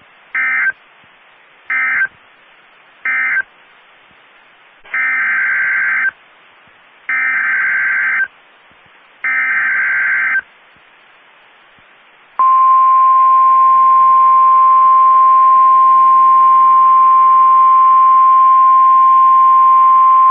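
NOAA Weather Radio EAS/SAME data bursts: three short end-of-message bursts, then three longer header bursts, each a harsh digital warble. About twelve seconds in, the steady 1050 Hz weather radio alarm tone starts. It is the loudest sound and holds one unwavering pitch, marking the start of a new severe thunderstorm warning.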